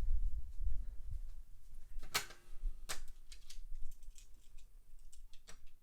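Die-cast toy cars and track pieces being handled. A low bump comes at the start, then a sharp click with a brief metallic ring about two seconds in, another click about a second later, and a run of lighter clicks and taps.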